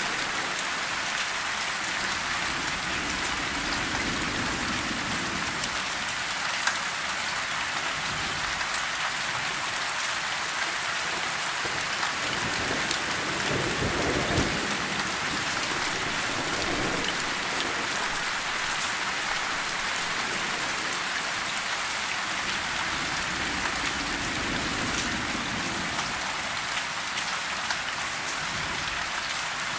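Steady rain falling on broad tree leaves, with low rolls of thunder swelling up a few times, the strongest about halfway through.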